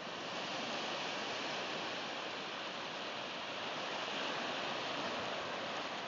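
Small waves washing up on a sandy beach, a steady hiss of surf at the shoreline.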